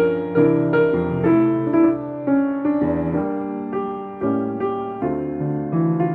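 Solo upright piano playing a prelude: single melody notes struck one after another, two or three a second, over held lower notes.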